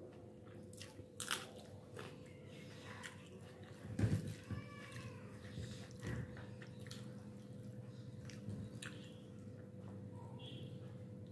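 Hand-eating sounds: fingers mixing rice and curry on a plate, with chewing. Scattered soft clicks and wet smacks come throughout, and the loudest is a knock about four seconds in.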